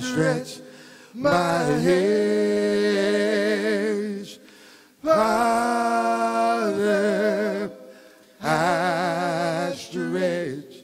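A group of men singing a cappella in harmony, in long held phrases with vibrato and short breaths between them.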